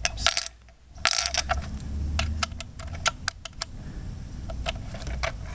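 Metal Allen wrench scraping and clinking in the wheel bolt of a pool cleaner as the bolt is turned tight: two short scraping rushes in the first second and a half, then a run of quick, light clicks.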